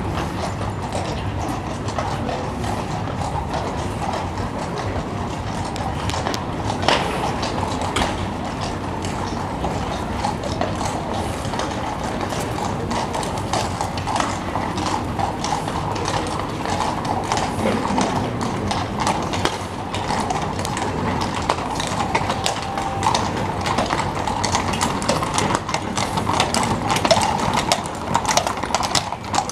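Hooves of a group of cavalry horses walking on cobblestones: a continuous, uneven clip-clop of many hooves.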